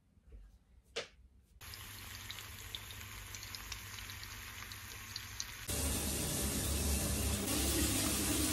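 Eggs and sausages sizzling in a frying pan, a steady hiss with small crackles. About two-thirds of the way through, this cuts to louder water running from a bathroom tap.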